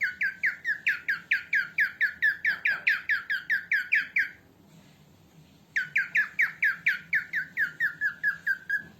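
Cockatiel calling in rapid runs of short, downward-slurred squawks, about five a second. There are two bursts with a pause of about a second and a half between them, and the last calls of the second burst are softer and lower.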